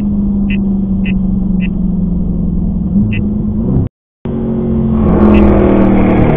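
V8 engine of a Dodge Charger Scat Pack, heard from inside the car while it cruises, with a steady drone and a light regular ticking about two times a second at first. The sound cuts out for a moment about four seconds in and comes back louder, the engine pulling harder.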